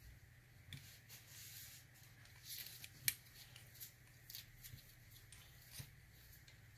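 Faint clicks and light scrapes of small metal lock parts and tools being handled while a euro cylinder lock is taken apart, with one sharper click about three seconds in.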